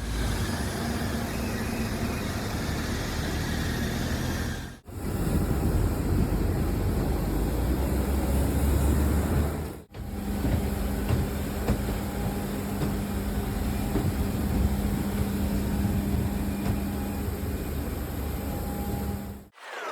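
Steady rush of an airliner's jet engines and airflow heard inside the cabin in flight, with a faint steady hum. It breaks off for a moment about five seconds in, again about ten seconds in, and just before the end.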